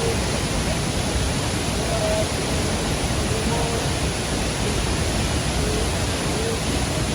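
Waterfall rushing: a steady, even roar of falling water with no breaks.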